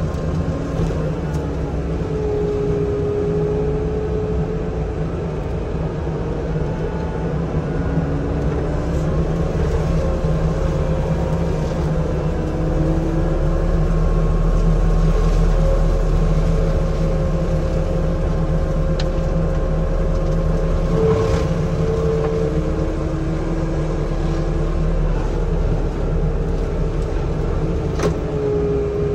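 Forestry mulcher at work clearing brush and small trees: the carrier's diesel engine runs steadily under load, its pitch sagging and recovering slightly as the spinning mulching head grinds through the saplings. A few sharp knocks of wood and debris striking the machine, one near the end.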